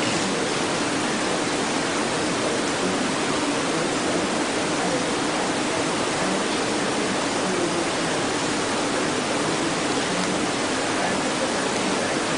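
Steady, even hiss with a faint low hum underneath, unchanging throughout, with no distinct knocks or voices.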